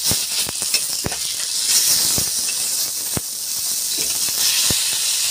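Masala-coated fish shallow-frying in oil on an iron tawa: a steady sizzle with scattered pops and crackles of spitting oil.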